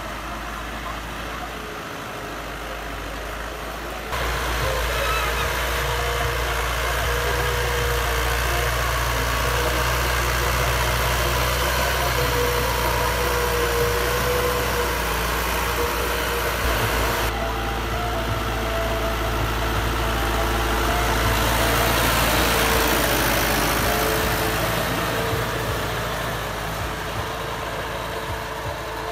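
Fiat 640 tractor's four-cylinder diesel engine running steadily under load while pulling a tine cultivator through the soil. The sound steps up abruptly louder about four seconds in and stays at that level, swelling slightly near the end.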